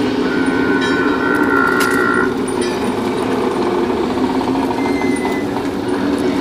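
Spooky sound effects for a pirate-ship Halloween display, played from a CD over loudspeakers: a steady rumbling ambience, with a steady high tone for about two seconds near the start.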